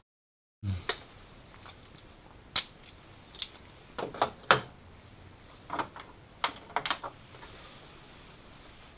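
Hand tools clicking and tapping against the alternator's metal rear housing while its cover and screws are being worked loose: about a dozen sharp clicks in irregular clusters, the loudest around the middle.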